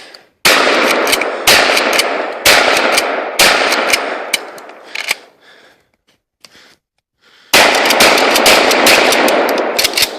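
Remington 870 pump-action shotgun fired at a tree: four shots about a second apart, each followed by a trailing echo, then a pause of about two seconds and another rapid run of shots.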